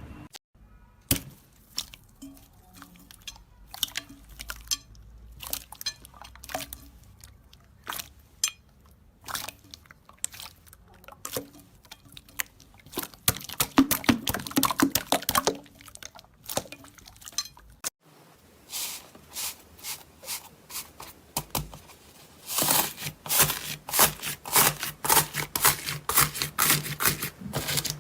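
Slime being squeezed and worked by hand, giving a string of sharp crackling pops and crunches, scattered at first and thickening into a dense crunchy run in the last few seconds.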